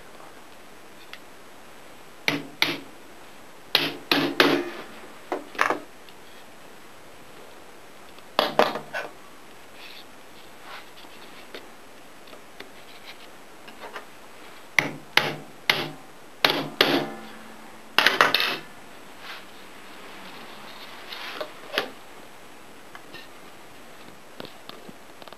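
Scattered clusters of sharp wooden knocks with some rubbing and scraping, over a low steady hiss: wooden slats being pressed and tapped into the square mortises of a screen rail.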